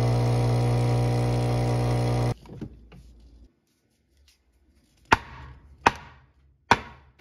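Espresso machine's vibratory pump humming steadily as the shot pulls, cutting off abruptly about two seconds in. Then a stainless portafilter is knocked face down on a wooden countertop three times, sharp knocks a little under a second apart, to knock out the spent coffee puck.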